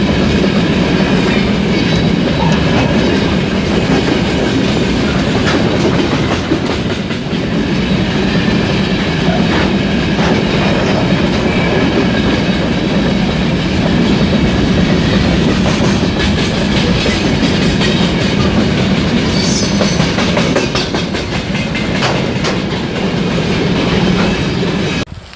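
A train running past close by: a steady rumble of wheels on rails with clickety-clack over the rail joints and a brief high squeal about twenty seconds in. The sound cuts off suddenly near the end.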